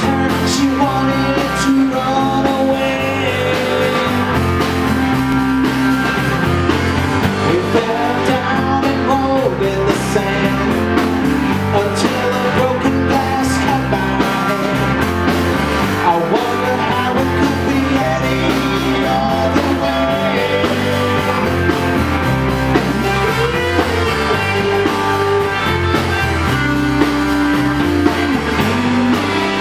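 Live blues-rock band playing: two electric guitars trading sustained lead lines over a drum kit.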